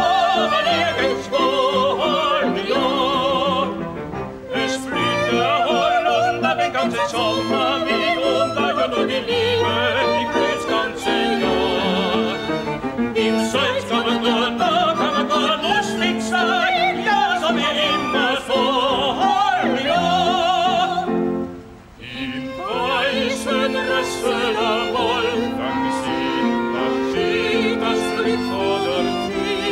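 A woman and a man singing a duet in an operatic style with vibrato, accompanied by a small salon string ensemble of violins and cello. The music drops almost to a pause about two-thirds of the way through, then carries on.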